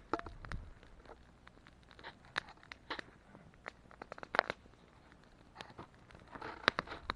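Wood fire crackling, with irregular sharp pops and snaps from the burning firewood, two louder snaps about four and a half and nearly seven seconds in.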